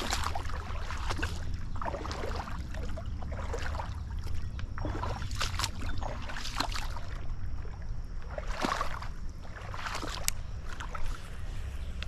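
Shallow creek water sloshing and splashing in irregular swishes every second or two as someone moves through it at the bank, over a steady low rumble, with a few sharp clicks near the end.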